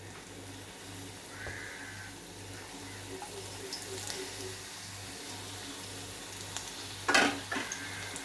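Food sizzling as it fries in hot oil in a pan, with a loud sudden knock about seven seconds in.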